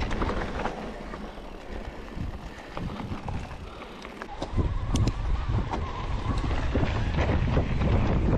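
A mountain bike riding a trail: wind noise on the microphone, tyres rumbling and the bike rattling. It eases off about a second in and comes back louder about halfway, with a run of knocks and clicks.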